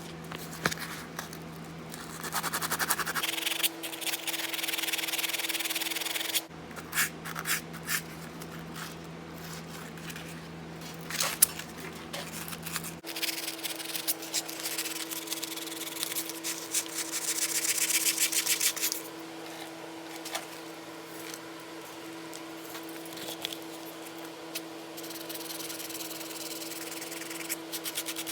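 Abrasive rubbing on the broken steel ends of a bandsaw blade, cleaning them up for welding: scratchy strokes in bursts of a few seconds, over a steady hum.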